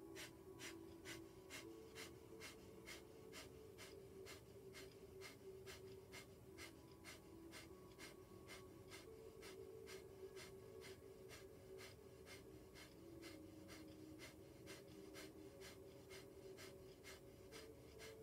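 Breath of fire: rapid, rhythmic forced exhalations through the nose, short sharp puffs at an even pace of about three to four a second, faint.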